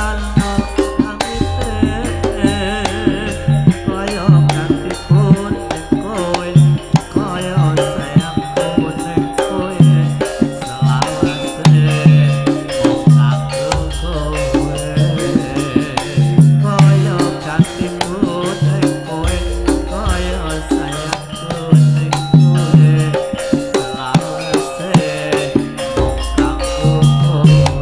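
Javanese gamelan music accompanying a tayub dance: dense, quick drum strokes over ringing pitched notes, with a deep low note coming in every several seconds.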